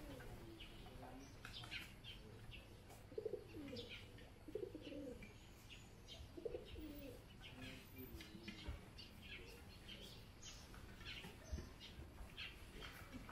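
Faint birdsong: scattered short, high chirps from small birds, with a few lower, cooing calls in between.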